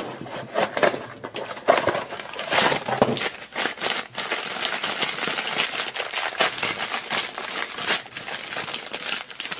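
A blind-box figure's foil wrapper crinkling and crackling in a dense, irregular run of rustles as hands work it open, with cardboard from the small box handled at first.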